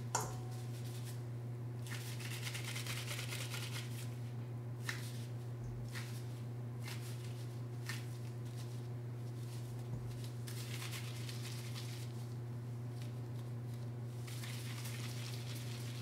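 Kitchen handling sounds from baking prep: a few light clicks and knocks and short spells of rustling or scraping, over a steady low hum.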